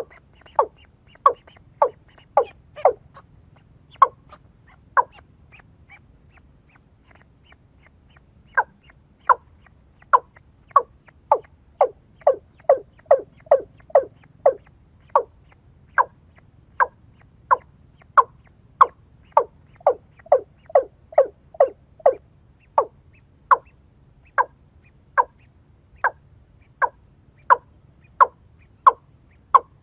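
A bird's short, sharp call repeated over and over, about one to two calls a second, with a pause of a few seconds a few seconds in.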